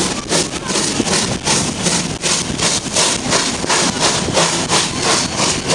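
HR1 'Ukko-Pekka' Pacific steam locomotive pulling a train away, its exhaust beating a steady chuff about four times a second over the rumble of the carriages rolling past.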